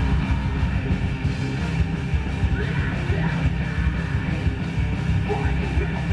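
Loud rock music, dense and steady with a heavy low end, in the punk or heavy-metal vein, with yelled vocals.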